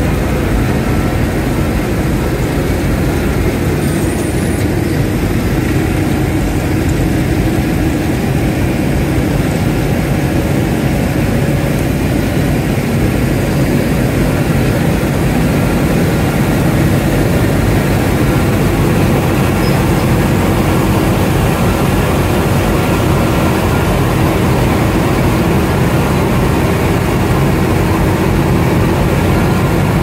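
Heavy diesel road-construction machinery running steadily, a continuous low engine drone that grows slightly louder about halfway through.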